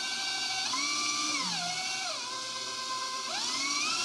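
Electric stand mixer's motor running with a steady whine while beating a block of dense, softened cream cheese. Its pitch steps up about a second in, falls back down around two seconds, and rises again near the end as the speed is changed.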